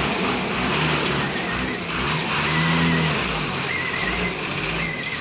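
Heavy road-construction vehicles running: a steady engine drone under a wash of noise, with a few short, wavering high-pitched squeals from about halfway through.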